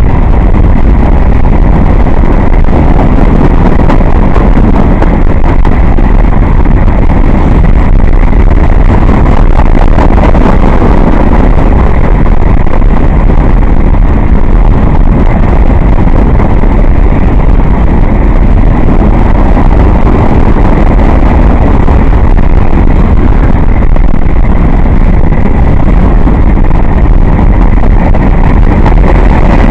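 Freight train of empty grain hopper cars rolling past: a loud, steady rumble with wind buffeting the microphone.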